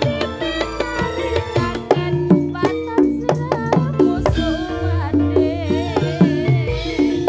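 Live Javanese jaranan senterewe music: drums and struck percussion beating a quick, busy rhythm, with a melody line that bends and wavers in pitch above it.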